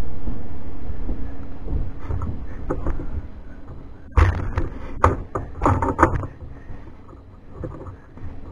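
Handling noise from a camera being set up: low rumbling and rubbing that fades over the first few seconds, then a cluster of sharp knocks and clatters between about four and six seconds in.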